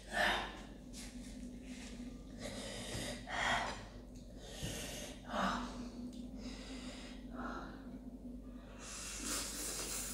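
Spicy instant noodles slurped into the mouth in repeated short, hissing sucks with sharp breaths between them, the mouth drawing air against the chilli heat; a longer slurp comes near the end.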